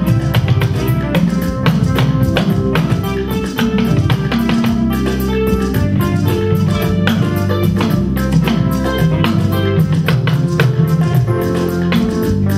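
Band music with guitars and drums playing a steady beat.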